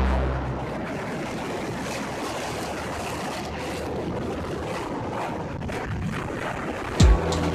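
Steady rushing wind noise on the microphone of a moving vehicle. Electronic background music fades out just after the start and comes back with a heavy beat near the end.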